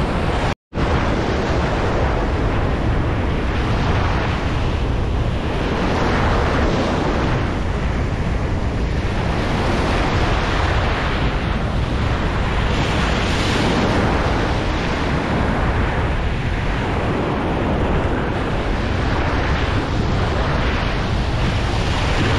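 Ocean surf washing and breaking close to the microphone, swelling every few seconds, with wind buffeting the microphone.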